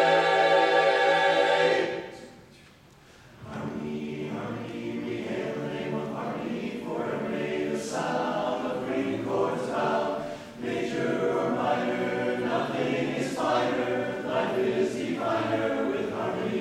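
Men's barbershop chorus singing a cappella. A loud held chord cuts off about two seconds in, and after a short pause the chorus starts singing again, more softly.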